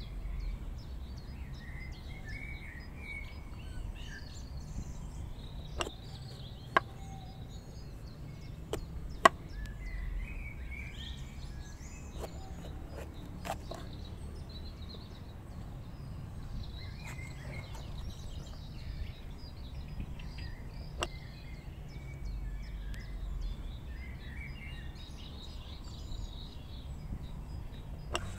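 Birds chirping over a steady low outdoor rumble, broken by a few sharp knocks of a bell pepper and knife on a wooden cutting board. Right at the end a knife starts slicing the pepper on the board.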